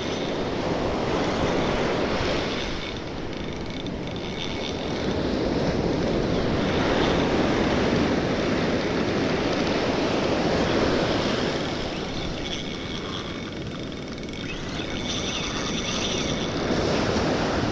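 Ocean surf breaking and washing up a sandy beach. The noise swells and eases every few seconds as the sets come in.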